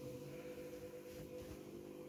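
Von front-loading washing machine running with its drum turning: a steady whine over a low rumble, the noise of worn-out bearings.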